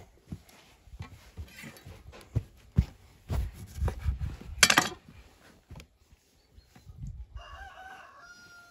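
A cleaver chopping quince on a wooden cutting board: irregular knocks and thuds, loudest around four to five seconds in. Near the end a chicken gives a short call.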